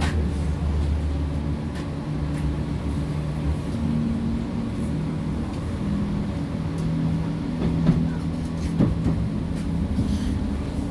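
PESA Fokstrot low-floor tram running along the line, heard from inside the passenger cabin: a steady low rumble with drive tones that shift in pitch. There are a couple of short knocks about eight and nine seconds in.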